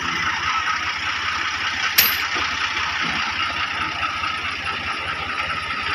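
Tractor diesel engine idling with a steady low chugging, and a single sharp metallic clank about two seconds in.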